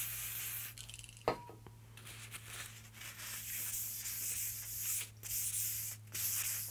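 A short hiss of WD-40 aerosol sprayed onto a cloth, a click about a second in, then the cloth rubbing in strokes across the bandsaw's metal table.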